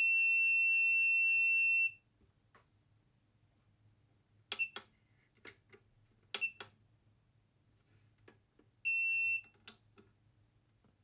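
Electronic beeps from a chemical fume hood's control panel as it is switched on: a long steady beep lasting about two seconds, then several sharp button clicks, some followed by a short chirp, and a second, half-second beep near the end.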